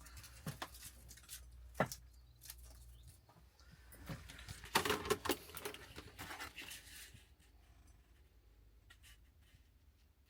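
Quiet handling of paper: rustling and scattered light clicks and taps, over a faint steady low hum.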